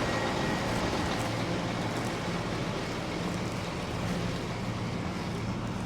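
An engine idling steadily, a low even hum, with a rushing noise of wind over it.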